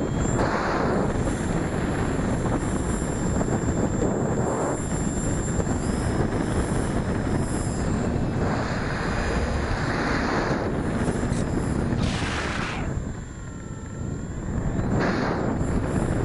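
Rushing wind on the microphone of a camera mounted on an electric RC glider's wing in flight, a steady noisy roar of airflow that swells and eases as the model manoeuvres and drops away briefly late on.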